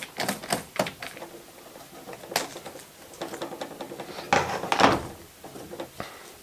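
A scattering of short clicks and knocks from something being handled, with the loudest cluster about four to five seconds in.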